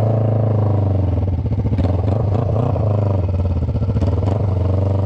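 Kawasaki Ninja 500R's parallel-twin engine running while the bike is ridden, its note rising and falling with the throttle, with a few brief clicks. It is running on a freshly rebuilt carburettor with no air filter fitted.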